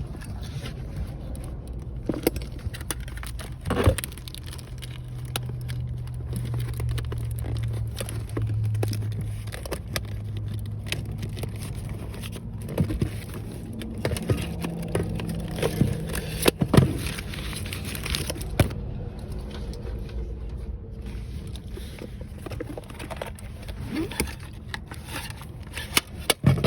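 Car engine idling, heard from inside the car, with scattered clicks and scrapes of something being handled.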